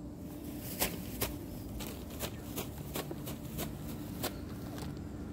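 Footsteps scuffing and crunching on gritty asphalt, a sharp step about twice a second, over a steady low hum.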